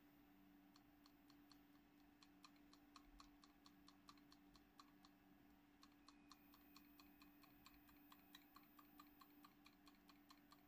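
A computer keyboard's Delete key tapped rapidly and repeatedly to get into the BIOS at boot: faint clicks about five a second, starting a little under a second in, over a steady low hum.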